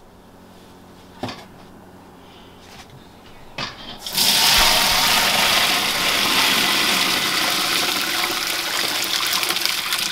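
Dandelion tea pouring from a stainless steel stock pot through a strainer into another pot: a steady splashing pour that starts about four seconds in, after two light knocks.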